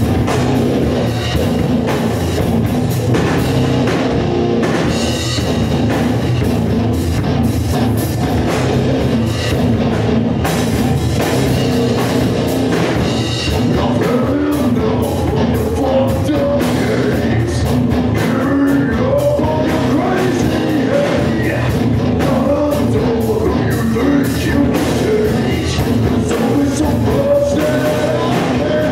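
Live heavy metal band playing: electric guitar, bass guitar and drum kit, with a vocalist singing into a microphone.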